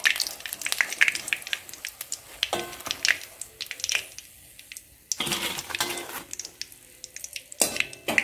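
Hot oil sizzling and crackling in a metal kadai as deep-fried fish chops are lifted out with a wire skimmer, the skimmer clinking and scraping against the pan in several short clusters.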